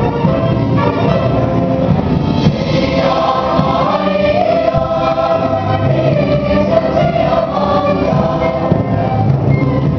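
High school mixed choir singing a held, continuous choral passage, accompanied by strings.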